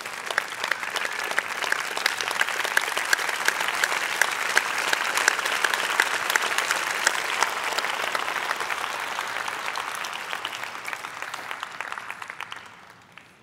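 Audience applauding, many hands clapping at once, dying away over the last couple of seconds.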